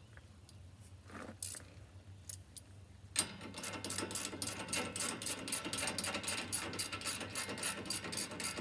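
Socket wrench ratcheting as a bumper mounting bolt is run down: a few light clicks of handling, then about three seconds in a steady run of ratchet clicks, about four or five strokes a second.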